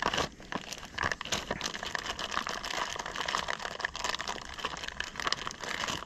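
Packaging crinkling and rustling as new chain idlers are unwrapped by hand: a continuous crackle of many small clicks and rustles.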